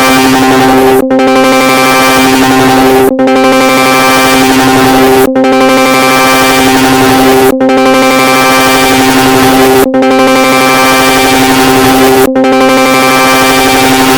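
Discord's user-join notification chime stacked on itself over a million times, merged into a loud, dense, harsh electronic drone of steady pitches. The drone drops out briefly about every two seconds.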